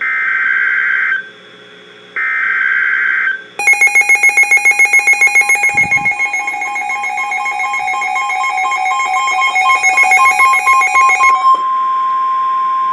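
NOAA Weather Radio Emergency Alert System alert: two short warbling SAME digital header bursts about a second apart, then a rapidly pulsing electronic alarm of several tones for about eight seconds, then the steady single-pitch 1050 Hz attention tone, which signals that a warning message follows.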